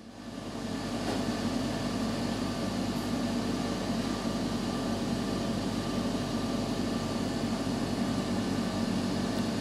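Steady hum of electric motor-driven processing machinery running, a low hum with several steady tones above it; it swells in over about the first second and then holds level.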